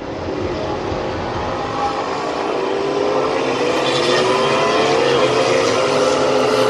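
MotoGP racing motorcycles accelerating as they approach, the engine note climbing in pitch and growing steadily louder.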